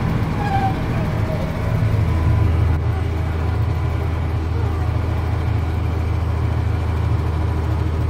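Case IH 7120 Magnum tractor's diesel engine and cab drone under load, pulling a slurry tanker that is spreading manure. The low drone grows louder and steadier about two seconds in.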